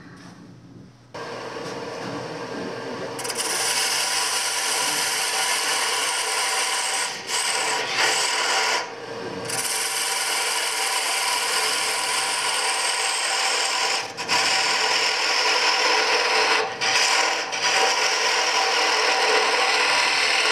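Wood lathe spinning a spindle while a turning tool cuts into it, a steady cutting noise of wood shavings being peeled off. The cut begins about a second in, gets louder a couple of seconds later, and breaks off briefly a few times.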